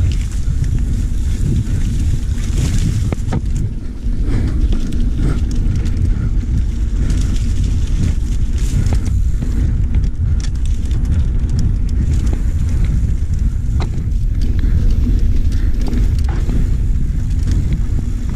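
Wind rumbling on the camera microphone of a mountain bike riding fast down a rough dirt singletrack, with the bike's frame and parts rattling and knocking over the bumps throughout.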